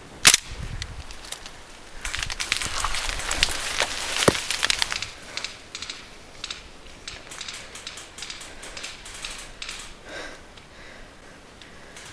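A single sharp airsoft pistol shot just after the start, followed by a few seconds of dense rustling and crackling of dry brush and undergrowth, then quieter scattered rustles and light clicks.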